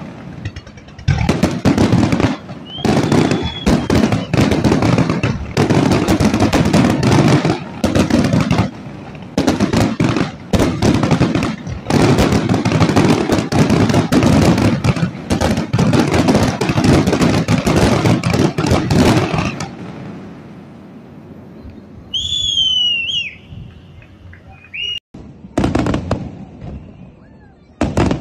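Fireworks display firing rapidly: a dense, continuous run of bangs and crackling bursts for about twenty seconds. It then thins out to a brief high whistle and a few single bangs near the end.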